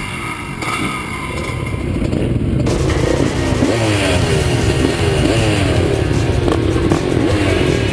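Dirt bike engine revving, its pitch rising again and again in quick sweeps as the throttle is worked, getting louder about three seconds in.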